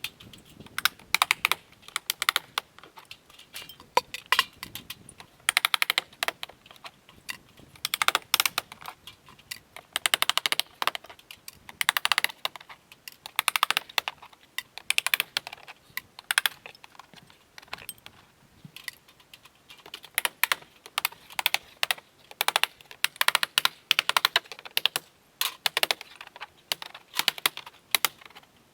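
Irregular clusters of rapid, sharp clicks and taps, each flurry lasting under a second and coming every second or two.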